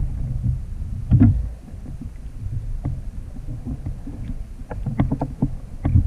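Low wind rumble on the microphone of a sit-on-top kayak at sea, with scattered small clicks and knocks as fishing gear is handled against the kayak hull. The loudest knock comes about a second in, and a quicker run of clicks comes near the end.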